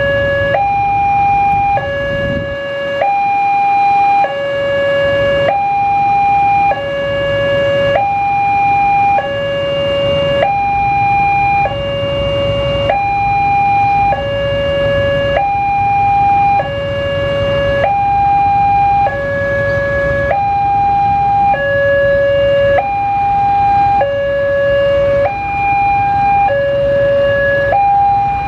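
Electronic warning alarm of a railway level crossing, sounding from the loudspeaker on the signal post. It alternates steadily between a higher and a lower tone, each held about a second and a quarter, warning road traffic that a train is approaching.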